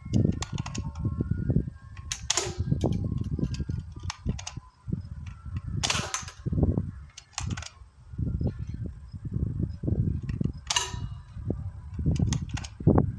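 Airsoft AR-15 firing single shots on semi-auto: about five sharp cracks, a few seconds apart. A low, uneven rumble runs beneath them.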